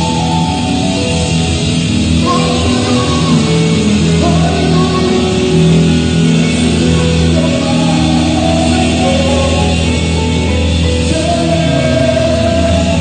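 Worship song music: a band with guitar, and a singing voice over it.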